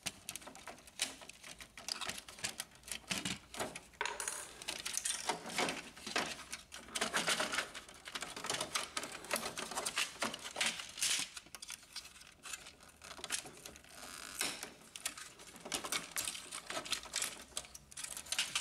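Irregular small clicks, taps and rattles of plastic and a steel screwdriver as an Epson WorkForce inkjet printer's control panel is unscrewed and its plastic housing handled and taken apart.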